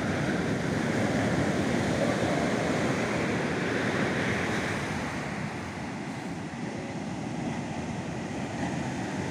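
Ocean surf breaking and washing up a sandy beach: a steady rushing wash that swells and eases with the waves.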